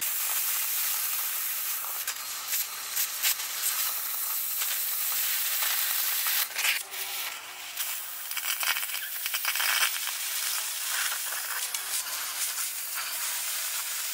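Oxyacetylene cutting torch with a size 0 tip cutting through steel pipe: a steady hiss of the cutting flame with small crackles as sparks and slag blow out of the cut.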